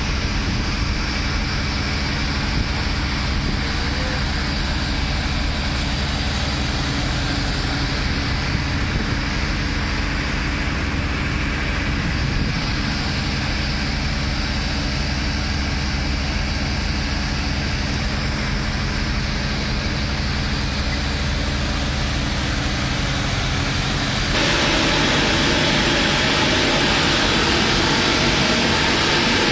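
Machinery running steadily with a low hum under a wide rushing noise. About 24 seconds in, it grows louder and harsher and stays so.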